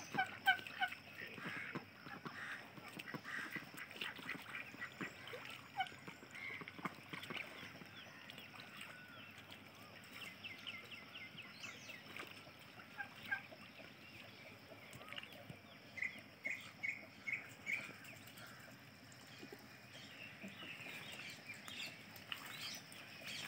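Domestic ducks calling on and off with short calls, including a quick run of evenly spaced calls about two-thirds of the way through.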